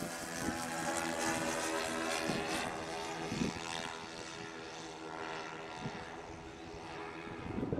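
Four piston engines of a 1/10-scale radio-controlled B-17 model droning steadily in flight, sinking slightly in pitch in the first few seconds.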